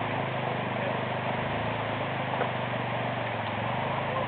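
Engine of a 400 cc quad bike (ATV) idling steadily, with an even rushing noise behind it.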